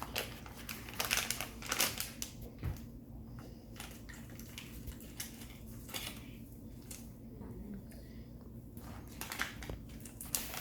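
Toy packaging being handled and torn open: irregular crinkling and crackling of wrappers and small boxes, with short pauses.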